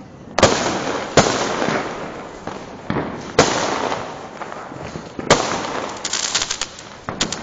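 Fireworks bursting overhead: sharp bangs a second or two apart, each trailing off over about a second. A quick run of crackles comes about six seconds in.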